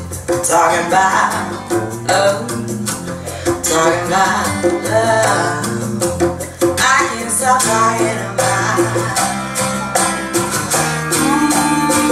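Recorded music played over hi-fi loudspeakers in a room: a song with guitar and singing over a bass line, with a light percussion tick keeping time.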